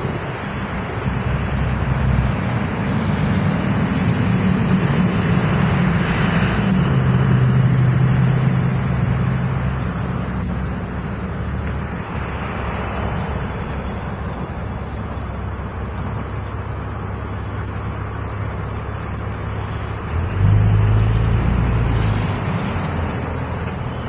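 Motor vehicle engines and road traffic noise: a low engine hum that shifts in pitch over a steady rush of noise, growing louder about twenty seconds in.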